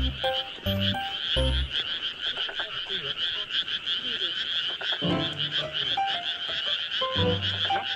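A dense chorus of many frogs calling at once: a fast, continuous, high-pitched croaking.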